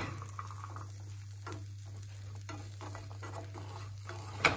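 Spatula stirring chickpeas and vegetables in a frying pan, with light scraping strokes about once a second over a faint sizzle of frying on the gas hob. A sharp knock comes near the end.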